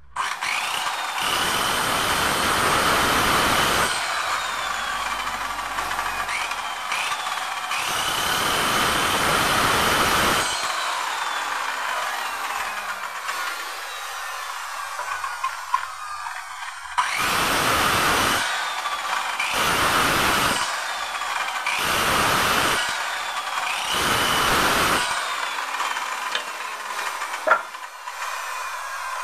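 Corded handheld circular saw cutting old reclaimed wooden boards: two long cuts in the first ten seconds, then four short cuts about two seconds apart. Between cuts the motor's whine falls in pitch as it winds down, and there is a sharp knock near the end.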